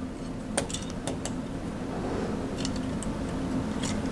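Small parts of a 1/6 scale toy M2 Browning machine gun being handled and fitted together, giving a few light clicks and taps. Under them runs a steady low hum.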